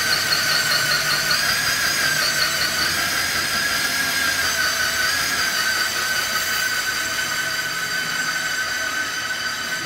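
Diamond core drill running steadily as it bores a hole through the concrete floor, a constant high motor whine with a slight waver as the bit cuts.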